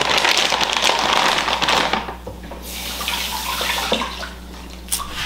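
Kitchen tap running water, stopping about two seconds in, followed by a brief quieter hiss and a few light knocks.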